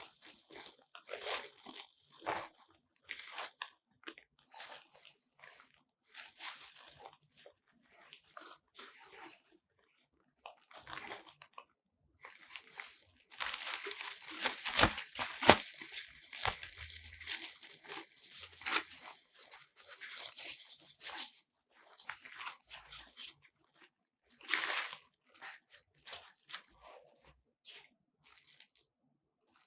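Crinkling and rustling of a softbox's white diffuser cloth as gloved hands lift, fold and smooth it, in irregular bursts that are loudest and busiest in the middle stretch.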